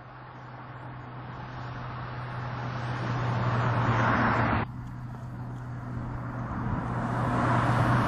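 Mazda CX-3 driving by, its engine hum and tyre noise growing louder as it approaches. The sound cuts off suddenly about four and a half seconds in, then builds again as the car comes closer near the end.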